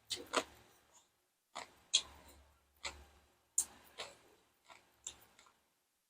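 A person chewing crunchy food close to the microphone, about ten sharp crunches at an uneven pace, each dying away quickly.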